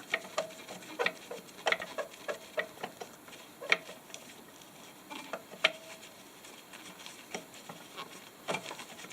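Scattered small metal clicks and taps, a few ringing briefly, as pliers work a nut loose on an oil burner's fitting.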